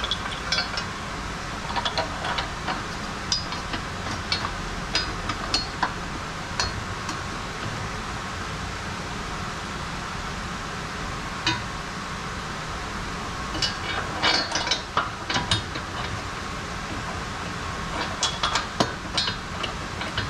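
Hand tools on metal: scattered sharp clinks and taps, in short clusters, over a steady background hum.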